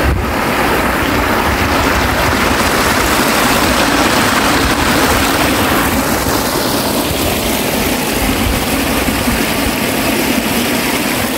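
Stream water rushing through the narrow gap of a small concrete weir and down a rocky cascade, a steady loud rush, with wind buffeting the microphone.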